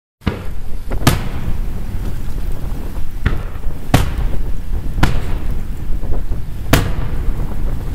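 Aerial firework shells bursting: about five sharp booms at uneven intervals, each trailing off in a rumbling echo, over a steady low rumble.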